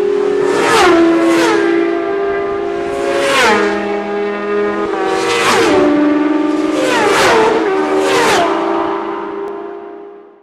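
High-revving racing engines sweeping past one after another, each pass a sharp drop in pitch, about six passes in all. The sound fades out near the end.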